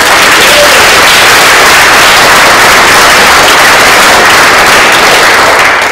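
Audience applauding loudly: a dense, steady clatter of many hands clapping.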